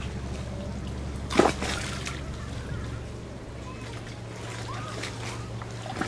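Water splashing and trickling, with one loud slap about one and a half seconds in, over a steady low hum.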